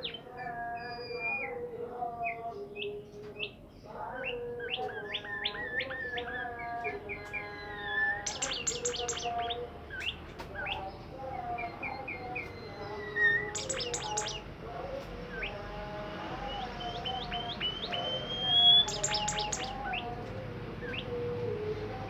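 A songbird singing continuously: a varied run of whistled notes, some gliding up or down. About eight, thirteen and nineteen seconds in come short bursts of fast, rattling chatter.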